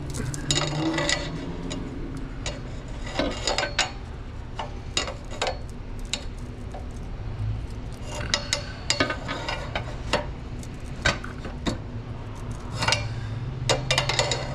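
Metal clinks and taps of a steel pry bar against a Hyundai Veloster N's exhaust pipe and its fittings, coming in irregular clusters, over a steady low hum.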